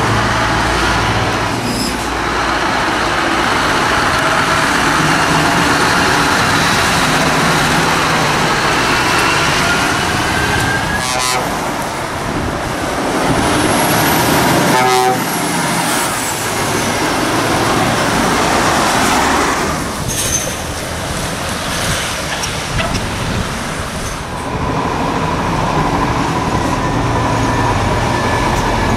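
Scania and Volvo articulated lorries driving past one after another, diesel engines running and tyres humming on the road. Loudest as one passes about halfway through.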